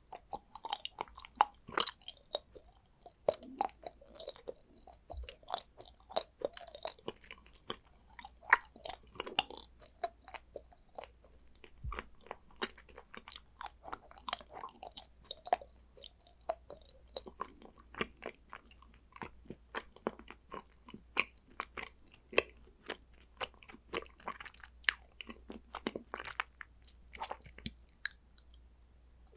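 Close-miked chewing and biting of condensed-milk chocolate: a dense, irregular run of crisp clicks, snaps and wet mouth sounds.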